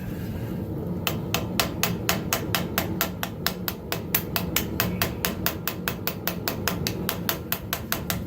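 Hand hammer striking metal on an anvil in a rapid even series of blows, about five a second, starting about a second in, over a steady low rumble.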